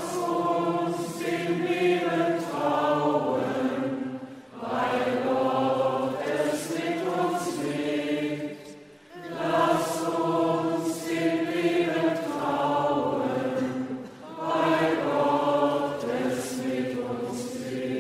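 Voices chanting a short sung refrain in four phrases, each a few seconds long with brief breaks between them: the sung response to a petition of the intercessions.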